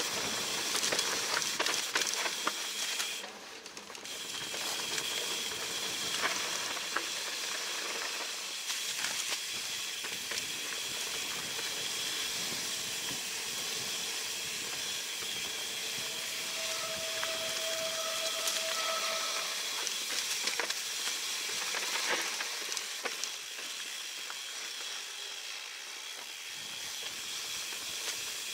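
Mountain bike rolling along a dirt singletrack: a steady hiss of tyres on dirt, with scattered clicks and rattles from the bike. A short steady whine lasts about three seconds past the middle.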